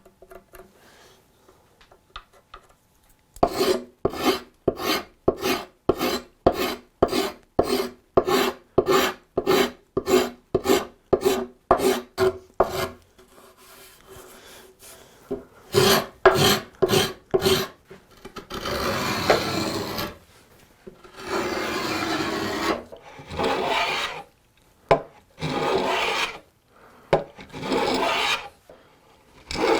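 Rasp worked back and forth on a quartersawn white oak chair part: a quick, even run of strokes about two a second, then a few longer, drawn-out strokes, then shorter ones again.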